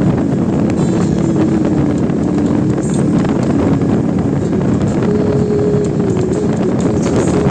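Suzuki Intruder VL800's V-twin engine running at highway speed under heavy wind noise on the microphone; the engine note steps up about five seconds in.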